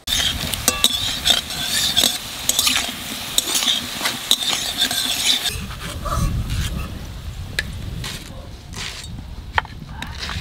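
Potato chunks sizzling as they fry in mustard oil in a steel wok, with a metal spatula scraping and clinking against the pan as they are stirred and lifted out. The clatter is densest for the first five seconds or so, then thins to occasional clinks.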